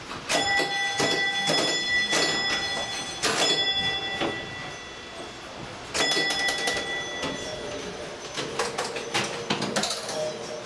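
Electromechanical pinball and bingo machines running: a bell is struck several times in two bursts, ringing on between strikes, over quick mechanical clicking and clatter.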